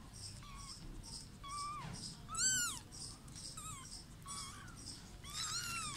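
A kitten mewing: a string of about six short, high-pitched mews that rise and fall in pitch, the loudest about two and a half seconds in.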